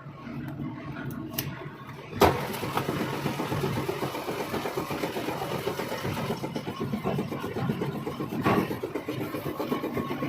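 A machine running with a steady, fast pulsing. A sharp knock about two seconds in is followed by louder running, and another knock comes near the end.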